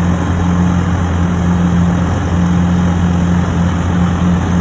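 Excavator diesel engine running steadily with a low, even hum.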